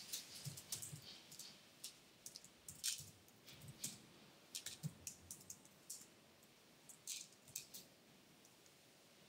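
Faint, irregular typing clicks on a MacBook laptop keyboard, coming in short runs with pauses between them.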